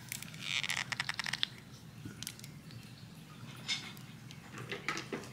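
Small cardboard nail polish box being opened and the bottle slid out: a short scraping rustle, then a quick run of light clicks about a second in, followed by scattered taps as the bottle is handled.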